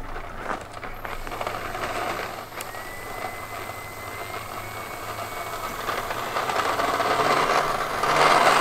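Electric motor and propeller of an E-flite Carbon-Z Cessna 150 RC plane running as it taxis, growing louder as it comes closer, with a jump in loudness near the end.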